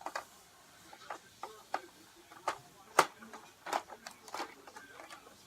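A series of irregular, light clicks and knocks, like small hard objects being handled and set down, with the sharpest knock about three seconds in.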